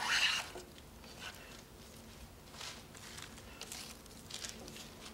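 Japanese side grooving plane (waki-ganna) taking short passes along the side walls of a groove in softwood timber: a few faint, brief scraping strokes of the blade shaving wood, unevenly spaced about a second apart.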